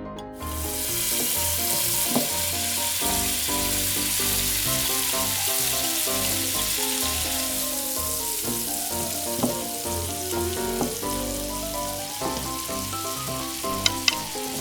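Chopped squid and shrimp mixture sizzling in oil in a small hot pan. The sizzle starts about half a second in and eases off toward the end, with two sharp clicks near the end.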